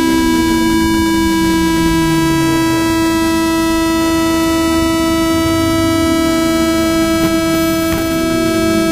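Steady electrical buzz from a DJI H3-3D gimbal, picked up by the GoPro Hero3+ Black's own microphone. It holds one fixed pitch with many overtones. Beneath it, a lower tone glides downward over the first few seconds and again near the end.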